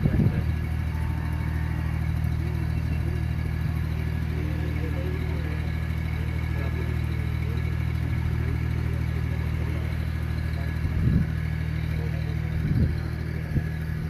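A steady, low engine hum that does not change in pitch, with a couple of short knocks near the end.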